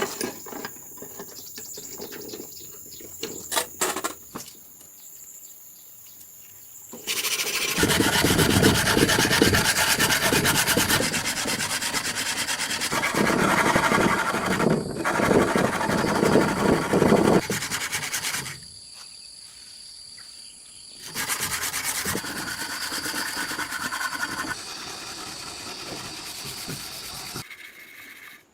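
Abrasive rubbing and scraping on a steel knife blade, in several stretches that start and stop abruptly, louder in the middle.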